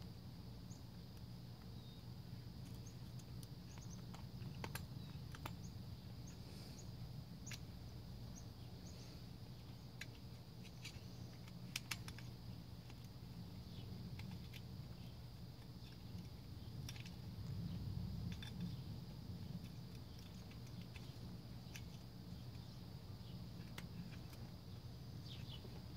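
Scattered small clicks and taps of metal parts and screws being handled while a small four-stroke trimmer engine's top end is put back together, over a steady low background hum and a faint high steady tone.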